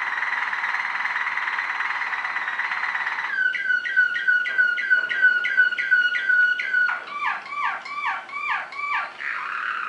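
Waterslager (Malinois) canary singing its rolling song. It starts with a continuous low rolling trill, switches about three seconds in to a run of repeated falling notes at about three a second, then to quicker falling notes, and the roll returns near the end.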